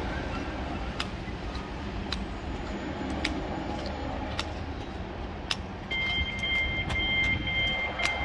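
Greater Anglia electric multiple unit standing at the platform with a steady low hum, and a sharp click about once a second. About six seconds in, a high, steady two-note electronic tone starts.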